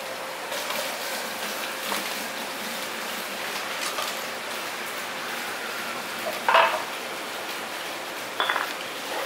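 Steady fish-market background noise with scattered knocks and metal clinks of knives and cutting tools at a tuna-cutting table. The two loudest knocks come about six and a half and eight and a half seconds in.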